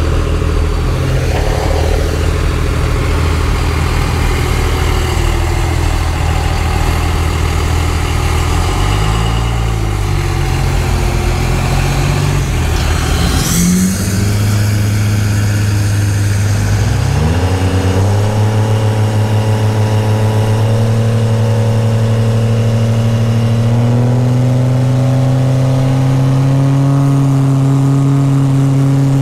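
Drag-racing trucks' engines running loud at the strip, idling and revving. About halfway there is a quick upward sweep in pitch, then a steady engine note that slowly climbs in pitch toward the end.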